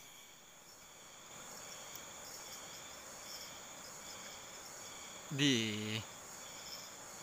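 Insects chirring steadily in a high, even drone. A man's voice sounds once, briefly and loudly, about five and a half seconds in.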